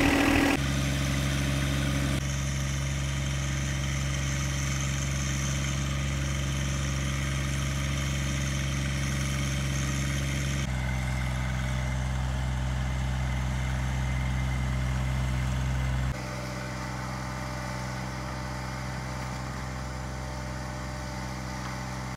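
John Deere 1025R sub-compact tractor's three-cylinder diesel engine running steadily while pulling a plow through the garden soil. Its note changes abruptly and gets quieter a few times.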